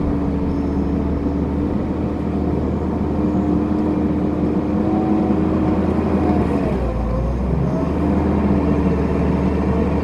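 Kubota compact track loader's diesel engine running steadily while it pushes dirt with a 96-inch six-way dozer blade. Its pitch dips briefly about seven seconds in, then picks back up.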